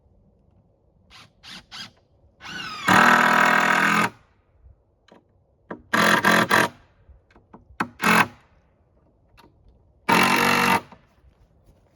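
Power drill driving deck screws into wooden 2x10 boards: four trigger pulls, the first spinning up and running about a second and a half, then three shorter runs, with a few light clicks before the first.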